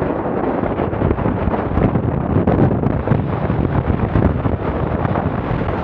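Strong gusting wind buffeting the microphone, a loud, uneven rushing roar from the 25–35 knot gale blowing over the open lake.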